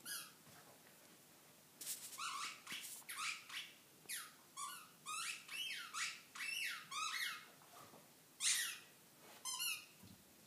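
Dog chewing a squeaky ball: a rapid string of short, high squeaks, each sliding down in pitch, packed close together through the middle, with a few more near the start and the end.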